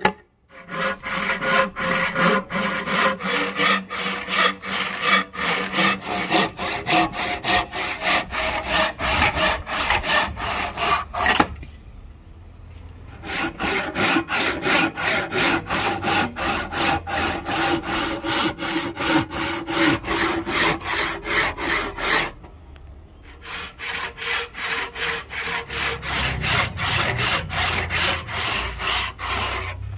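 Handsaw cutting through a curly padauk hardwood blank, a steady back-and-forth rasp with the blade ringing faintly. The sawing stops briefly twice, about twelve and twenty-two seconds in, then resumes.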